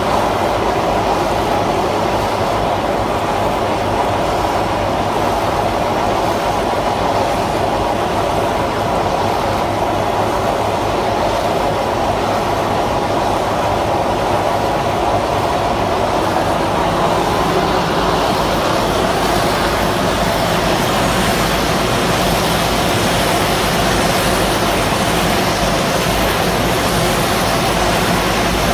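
CAT 432F2 backhoe loader running its QST3000D hydraulic chain saw attachment: a loud, steady machine noise that grows a little brighter and louder about two-thirds of the way through.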